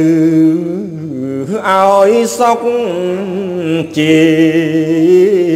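Khmer smot, Buddhist chanted verse, sung by a monk in one voice: long held notes with small wavering ornaments and pitch glides, broken twice by short pauses.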